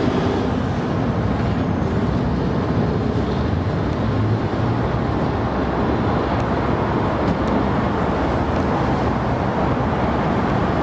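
Passenger train cars rolling along the track just below, a steady, even running noise of wheels on rail.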